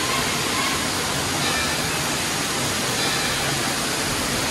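Steady rush of water pouring and splashing from an indoor water park's play structure, an even wash of noise in a large hall.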